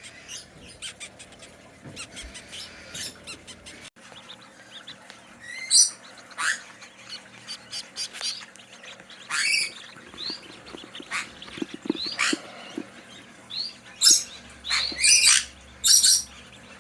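Parrots chirping and squawking in a rapid jumble of short, sharp calls, with loud squawks about a third of the way in and a cluster of them near the end, over a steady low hum.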